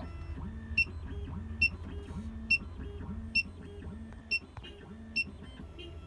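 SEC-E9 CNC key cutting machine decoding a high-security key: its motors step the probe along the key in short moves over a steady low hum, with a short high-pitched beep about every 0.85 s, six in all, as each position is read.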